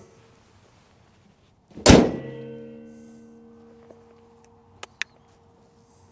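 The steel hood of a 1988 Toyota Land Cruiser HJ61 slammed shut about two seconds in: a single loud thunk, then a metallic ringing that fades over a couple of seconds. Two small clicks follow near the end.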